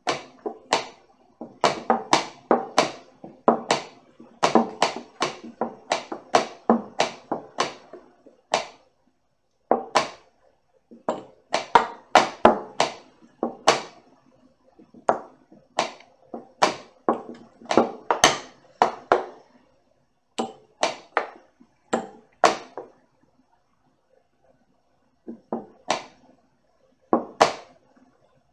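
Quick knocks of plastic chess pieces being set down on a roll-up board and hands hitting a Tempest phone chess clock, the rapid back-and-forth of a bullet chess game: about three knocks a second in busy stretches, broken by short pauses, and sparser near the end.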